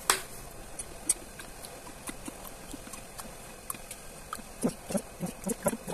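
A metal tablespoon clinks and taps lightly against a glass mug as table vinegar is spooned into it. A sharp click comes right at the start, then scattered small ticks follow.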